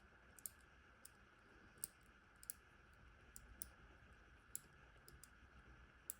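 Faint, irregular clicks of a three-dial combination padlock's number wheels turned slowly one notch at a time, while the wheels are searched for their gate position.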